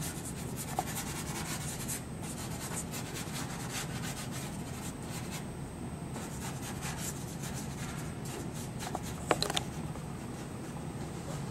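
A soft pastel stick scratching and rubbing across paper in quick short strokes, applying green over a lighter area. The strokes pause briefly midway, and a couple of sharp clicks come near the end.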